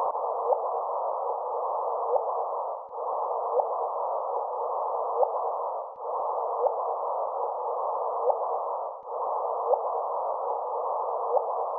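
Static-like hiss held in a narrow middle band, with two short rising chirps each pass. It is a roughly three-second loop that repeats four times, each repeat starting with a brief dip. It is presented as a recording of the sound of space.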